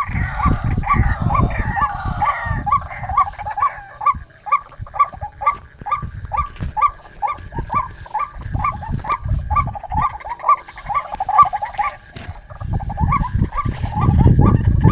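White-breasted waterhen (ruak-ruak) calling: a long run of short repeated notes, about three a second.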